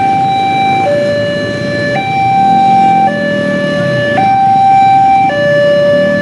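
Railway level-crossing warning alarm sounding a steady two-tone signal, low and high tones alternating about once a second, warning that a train is approaching while the barrier is down. Motorcycle and truck engines run underneath.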